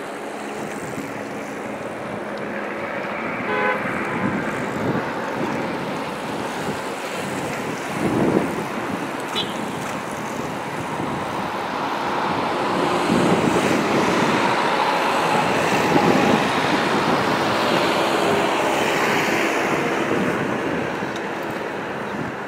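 Road noise of race support vehicles, an escort car and an ambulance, driving past, the engine and tyre noise swelling about halfway through and staying up for several seconds.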